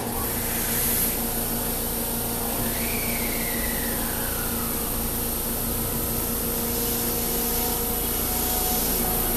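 JR West 223 series electric train idling at the platform: a steady hum with a constant high whine from its onboard equipment, then starting to pull away near the end. A single falling tone sounds about three seconds in.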